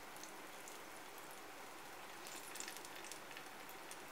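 Faint crackling and sizzling of hot vegetable oil from deep-fried eggplant tempura: a steady hiss dotted with small pops, which cluster about two and a half seconds in.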